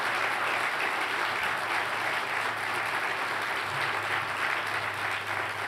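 Large audience applauding steadily, the clapping easing off slightly near the end.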